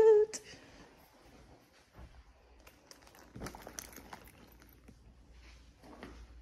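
A woman's drawn-out exclamation ends right at the start. Then there is faint rustling and handling noise from a phone being carried and turned, with a few soft taps about three and a half seconds in.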